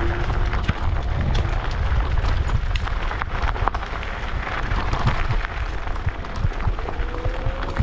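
Wind rushing and buffeting over the microphone of an action camera riding on an electric scooter, a steady loud rumble with scattered knocks and rattles from the ride.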